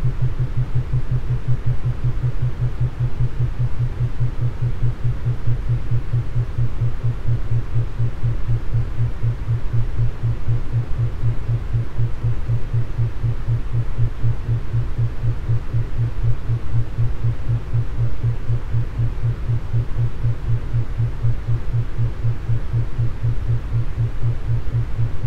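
Brainwave-entrainment beat track: a steady low electronic hum pulsing evenly several times a second over a soft hiss of noise.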